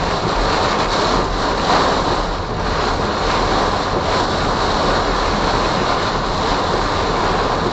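Heavy wind-driven rain and gusting wind beating on a van in a severe thunderstorm, a steady loud rush of noise heard from inside the vehicle.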